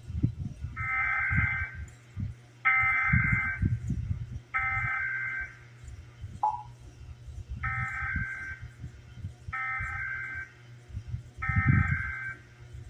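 Emergency Alert System SAME header: six harsh, buzzy digital data bursts of about a second each, in two sets of three with a short beep between them. These are the coded bursts that open an EAS alert, here for the required monthly test, heard over a broadcast station's audio with a low hum beneath.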